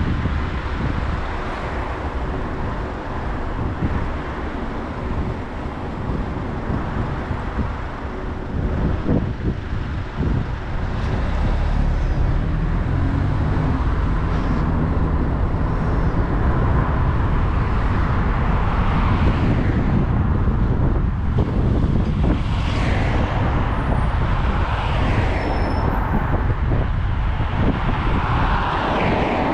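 Road traffic noise with wind rumbling on the microphone while moving along the street; a vehicle engine rises in pitch about halfway through.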